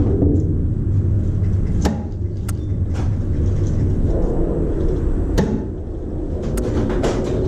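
About six sharp, short cracks of airsoft guns firing, scattered irregularly over a steady low rumble.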